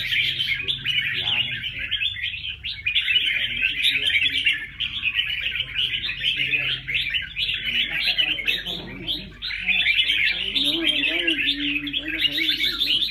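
Many small caged songbirds chirping and twittering at once, a dense, unbroken high-pitched chatter.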